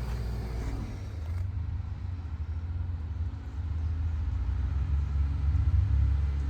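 Jeep engine running at low speed over rough ground, with a steady low rumble that grows louder about five seconds in.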